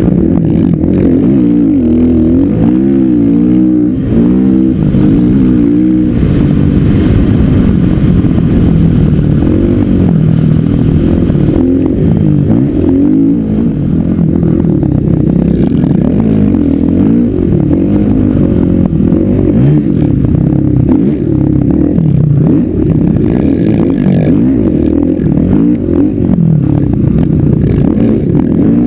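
Dirt bike engine running hard on sand, its revs rising and falling over and over as the throttle is worked.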